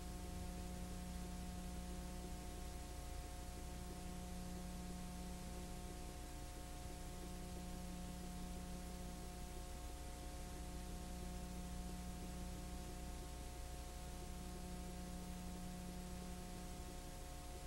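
Steady electrical hum and hiss with no other sound: the noise floor of a transfer of a silent 9.5 mm home movie. A low part of the hum drops out briefly about every three seconds.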